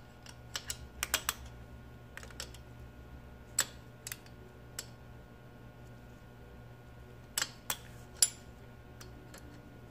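Open-end wrenches clicking against the hex of an adjustable pushrod as the top section is turned and the wrench is lifted off and reset, while the pushrod is extended through its four full turns of adjustment. About a dozen sharp metal clicks come scattered and in small clusters over a faint steady low hum.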